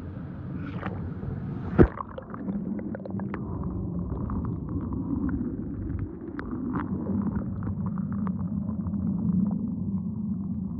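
Muffled rumble of churning water with many small crackling bubbles, heard with the microphone underwater. A single sharp knock sounds about two seconds in.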